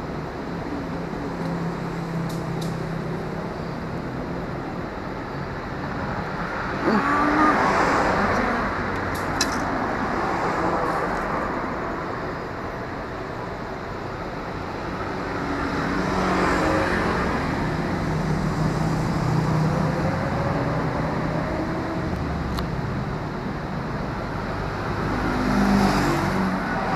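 Road traffic: a steady hum of vehicles with several passing close by, swelling about seven seconds in, again around the middle and once more near the end.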